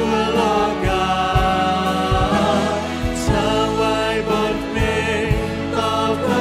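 Live Christian worship band: a male lead singer with backing singers, singing in Thai over electric guitars, keyboard and drums.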